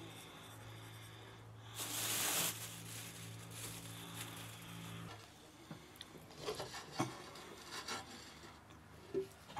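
Seasoning being added by hand to a chopped-greens filling in a metal bowl: a brief hiss about two seconds in, then light rubbing and a few soft knocks and scrapes. A low steady hum runs underneath and stops about halfway through.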